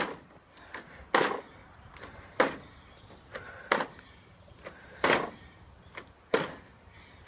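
Trainers landing on a wooden deck during jumping squats: a sharp thud with each landing, six of them, about one every 1.3 seconds, with softer sounds in between.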